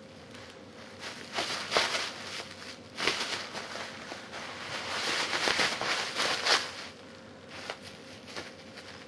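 Plastic bubble wrap crinkling and crackling in irregular bursts as a cat paws, bites and rolls in it, busiest through the middle seconds with a few sharper crackles, then dying down near the end.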